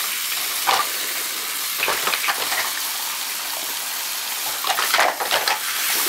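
Lukewarm tap water running into a sink over the plastic cyclone and filter parts of a Dyson V6 vacuum, a steady splashing hiss, with the parts knocking against each other as hands move them, most busily about five seconds in.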